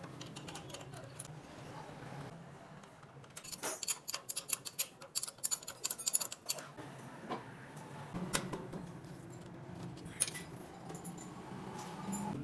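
Metal spanner clicking and clinking on the bolts of a motorcycle's front fork as it is being undone: a quick run of clicks a few seconds in, then a few single clicks, over a faint low hum.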